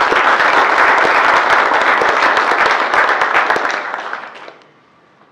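Audience applauding: a dense patter of many hands clapping that dies away about four seconds in.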